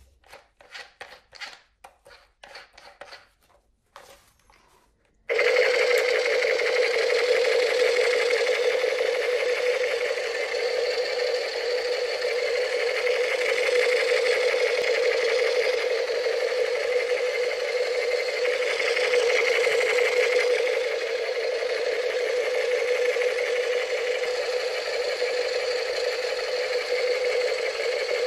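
Battery-powered toy machine gun: a few light clicks, then about five seconds in a loud, steady buzzing rattle from its motor and sound effect starts suddenly and keeps going.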